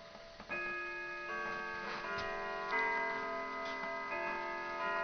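Grandfather clock chiming a quarter-hour melody: ringing notes struck one after another, each sustaining under the next, starting about half a second in over faint ticking.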